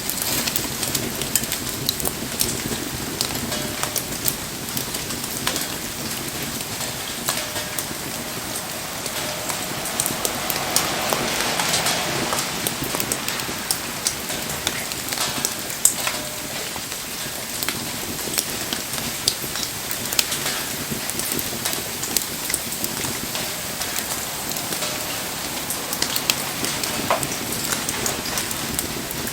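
Steady rain pattering over a crackling wood fire, with scattered sharp ticks and pops throughout. The hiss swells for a few seconds around the middle.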